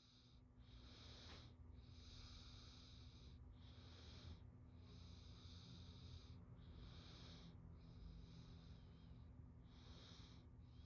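Faint diving sound effect: breathing underwater, a string of hissy breaths about a second each with short gaps, over a low steady hum.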